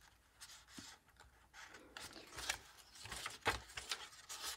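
Paper and card of a handmade junk journal rustling as its pages and tucked tags are handled and turned by hand: a run of short, soft rustles, the loudest about two and a half and three and a half seconds in.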